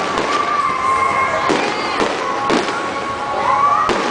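Fireworks exploding in a display: three sharp bangs spaced about a second apart. A held tone that glides upward a few times runs beneath them.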